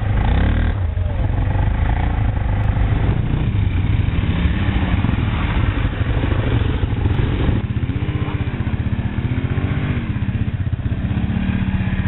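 Sport quad (ATV) engine revving up and down as it rides along a muddy dirt track toward the listener, its pitch rising and falling again and again. About seven and a half seconds in, the sound changes abruptly.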